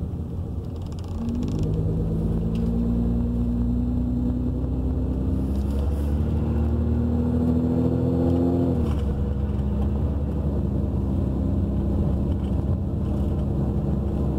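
Car engine and road noise heard from inside the cabin while driving. The engine note climbs slowly as the car gathers speed, then drops suddenly about nine seconds in and runs on steadily.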